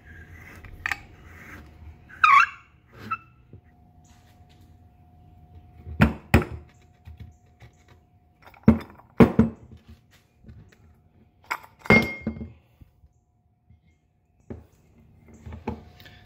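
EZGO golf cart CVT drive clutch being taken apart by hand on a wooden workbench: scattered clunks and knocks of its aluminium parts being lifted and set down, with a brief scrape about two seconds in. The loudest knocks come around six, nine and twelve seconds in.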